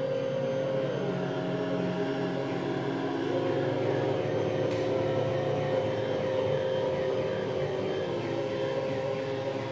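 Analog neural network of about 150 'Confetti Neuron' oscillator circuits playing through small loudspeakers: a dense electronic drone of many steady oscillator tones. About a second in, the strongest tone drops in pitch, and faint chirps flicker above the drone. It is the computing process of the network made audible.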